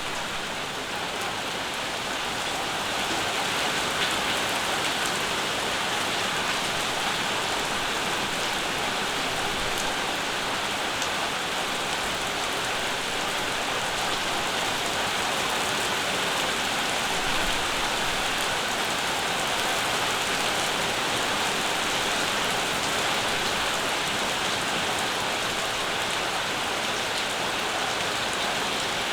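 Steady summer rain falling and pattering on surfaces, a dense even hiss that swells a little in the first few seconds and then holds.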